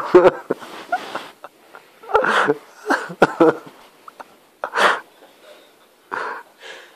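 Short, irregular bursts of a person's breathy vocal noises, wheezy snorts and huffs, some with a brief voiced edge, about half a dozen spread unevenly.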